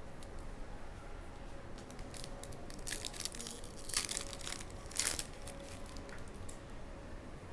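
Foil wrapper of a Prizm basketball hobby card pack crinkling in a run of short crackling bursts, loudest about four and five seconds in.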